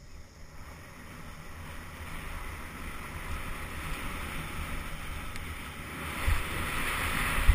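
Wind rushing over a handlebar-mounted camera's microphone, mixed with mountain bike tyres rolling on a dirt trail, growing steadily louder as the bike picks up speed downhill. A couple of low, heavy thumps come near the end as the bike hits bumps in the trail.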